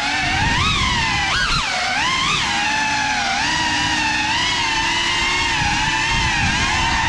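GEPRC FPV quadcopter's brushless motors whining, the pitch swooping up and down sharply with quick throttle changes for the first couple of seconds, then holding a steadier, gently wavering whine as the drone cruises low.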